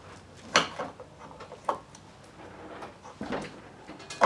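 Several light knocks and clicks as scooter headset parts are handled and fitted together, a sharp tap about half a second in and softer ones at irregular gaps after it.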